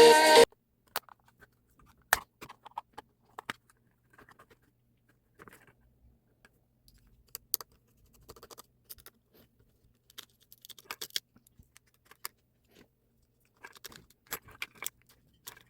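Scattered small clicks, taps and light scraping of a mini Bluetooth speaker's plastic casing and parts being handled and taken apart, coming irregularly with short gaps. Music from the speaker cuts off suddenly about half a second in.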